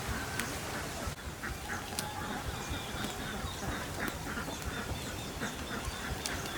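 Poultry calling in a quick run of short, repeated calls over a steady background noise.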